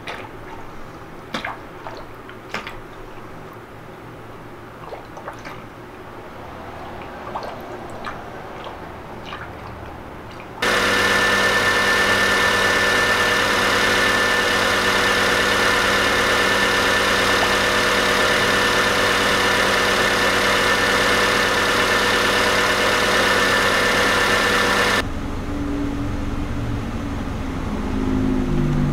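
Coolant trickling and dripping through a plastic funnel into the radiator filler neck, with small clicks. About ten seconds in, the Honda Civic's four-cylinder engine is heard running, loud and steady, close up under the open hood while the cooling system is bled. Near the end it gives way to a quieter idle that rises slightly in pitch.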